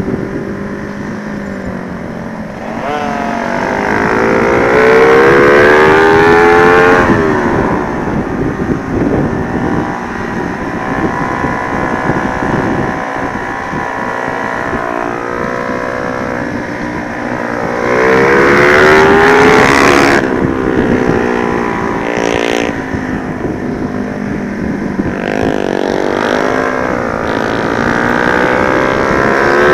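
Honda Sonic 125 motorcycle with a swapped-in 150 cc single-cylinder engine, ridden hard on a track. The engine note climbs steeply in pitch and drops back at gear changes, in three loud surges with quieter running between them.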